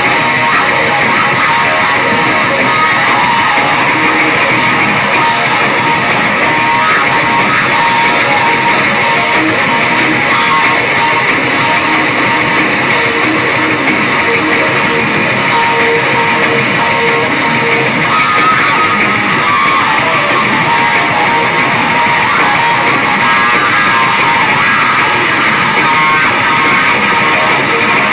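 Loud live noise-rock from a bass-and-drums duo: distorted electric bass guitar and pounding drum kit in a dense, unbroken wall of sound, heard from within the crowd.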